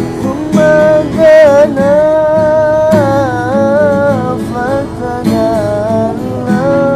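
A solo voice sings a sholawat melody with long, wavering, ornamented notes over strummed acoustic guitar.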